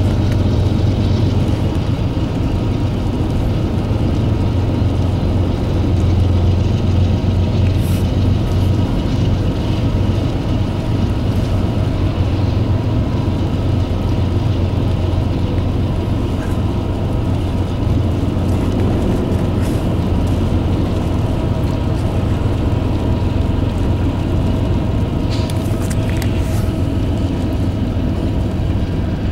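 Steady low rumble of a car driving on the road, heard from inside its cabin while it keeps pace with a freight train.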